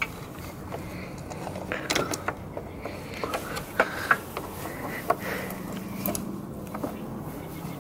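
Irregular small clicks and taps of a mounting screw and screwdriver working against the carburetor as the screw is lined up and threaded in, over a faint steady background hum.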